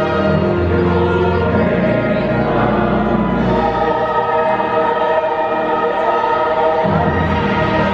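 Music with a choir singing held chords over a changing bass line.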